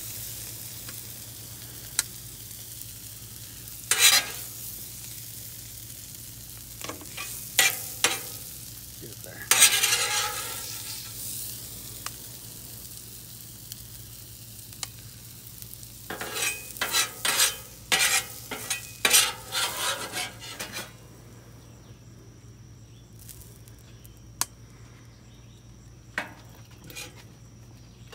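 Metal spatula scraping across a hot Blackstone flat-top griddle, shoving sizzling fajita peppers and onions onto a sheet pan, with a close run of scrapes in the middle. The sizzle fades near the end as the griddle is cleared.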